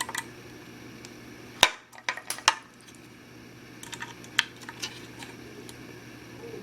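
Scattered sharp metallic clicks and taps of a small screwdriver working at hard-drive mounting screws in a laptop's drive bay. The screws are too tight to turn easily. The loudest clicks come about one and a half seconds in and again about a second later, with a small cluster near the end.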